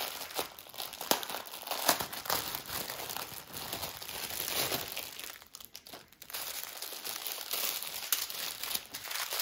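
Small plastic bags of diamond-painting drills crinkling as they are handled and sorted, with many light clicks, briefly quieter about halfway through.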